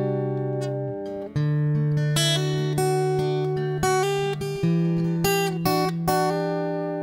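Background music: acoustic guitar playing plucked notes and strums.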